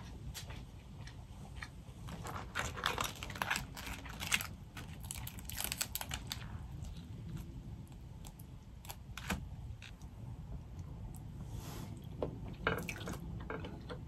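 Boiled crawfish being cracked, pulled apart by hand and chewed close to the microphone: clusters of sharp crunches and crackles of shell with short gaps between.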